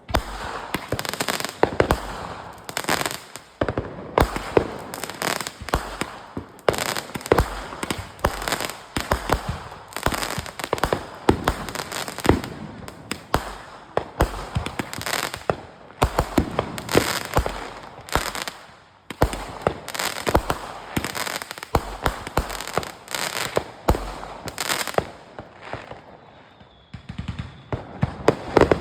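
Fireworks and firecrackers going off, many sharp bangs and crackles in quick, irregular succession, with a short lull near the end.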